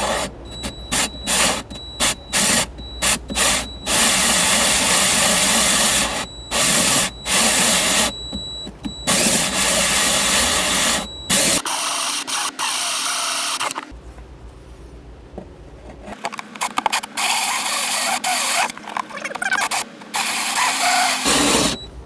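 A DeWalt 20V cordless right-angle drill drives a 3.5-inch hole saw through the plastic front wall of a truck's center console. It runs in short trigger bursts at first, then in longer stretches of cutting, with a brief lull in the middle.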